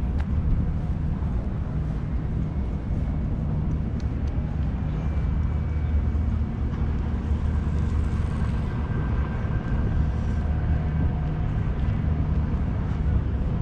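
Steady low drone of a motor vehicle's engine running nearby, with city street ambience.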